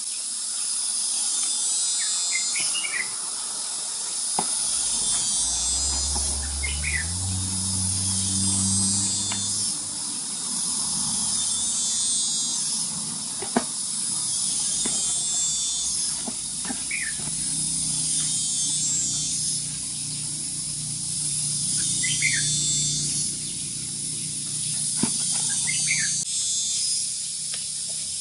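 A steady chorus of insects buzzing in pulsing phrases that swell every two to three seconds, with a few sharp knocks, the loudest about halfway through.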